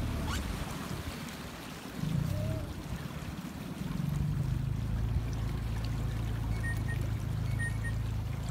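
Floodwater trickling and lapping along the hull of a small metal boat as it moves, over a low steady hum that grows stronger about halfway through.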